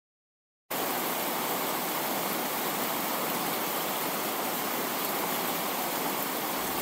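Steady hiss of static-like noise, spread evenly from low to very high pitches with no tone or rhythm. It starts abruptly under a second in and cuts off sharply at the end.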